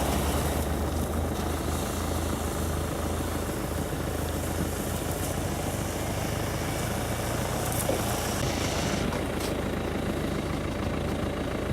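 GAZ-66 truck's engine running steadily at an even pitch.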